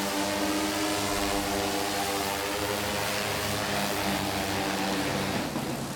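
Delivery drone's propellers buzzing in flight: a steady hum of several stacked tones over a rushing hiss, thinning out near the end.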